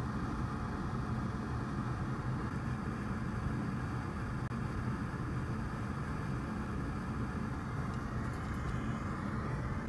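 Steady low hum and rushing air noise of a fan running at the repair bench, unchanging throughout, with a few faint ticks near the end.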